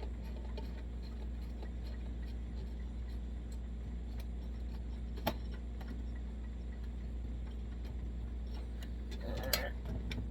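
Small metal clicks and taps as the generator nut is threaded back onto a Coleman 523 camp stove, over a steady low hum, with one sharper click about five seconds in and a short clatter near the end.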